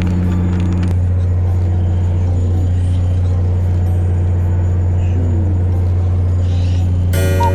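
Fishing boat's engine running, a steady low hum.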